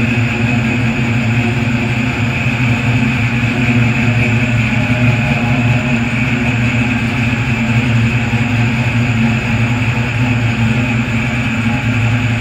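A 6.0-litre LS-series V8 in an Oldsmobile Cutlass idling steadily after a cold start.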